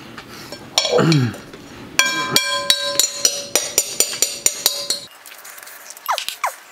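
A metal spoon clinking rapidly against a glass mixing bowl, making the bowl ring, as the last rice is scraped out. It comes after a loud sound about a second in that glides steeply down in pitch.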